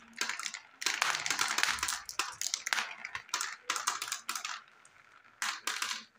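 Small plastic balls rattling down a wavy plastic marble-run chute and clattering into a plastic toy truck bed, a dense run of quick clicks. The clatter thins out for a moment, then a few last balls click in near the end.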